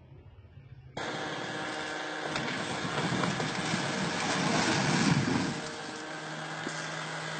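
A concrete slab breaking away from its pillar and collapsing, with a rumbling crash of falling concrete loudest about five seconds in, after a sudden start of outdoor noise about a second in.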